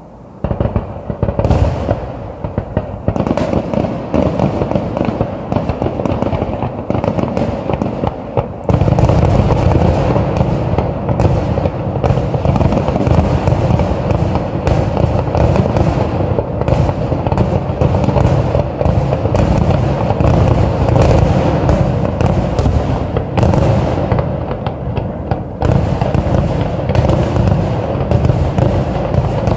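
Aerial fireworks shells launching and bursting: separate bangs at first, then from about nine seconds in a dense, continuous barrage of reports over a constant deep rumble.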